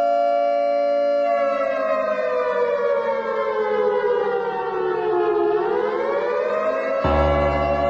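A siren-like wail holds one pitch, then slides slowly down and climbs back up again. A low, steady tone joins it near the end.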